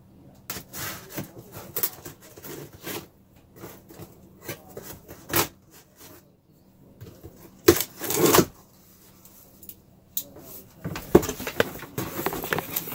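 Packing tape being cut along the top of a cardboard box, with scratchy scraping and rubbing of cardboard in irregular bursts. The longest, loudest scrape comes about eight seconds in, then near the end come denser rustling and rubbing as the flaps are pulled open.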